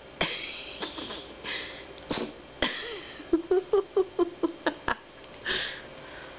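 A dog in a sneezing fit: several sharp sneezes, then about a second and a half of quick short puffs at about five a second, and another sneeze near the end.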